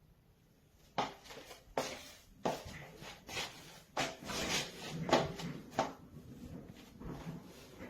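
Irregular knocks, clicks and rattling handling noises, starting about a second in and coming roughly every half second to second, loudest around the middle.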